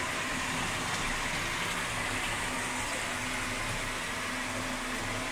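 Steady rush of water running at a kitchen sink while a backed-up drain is flushed out.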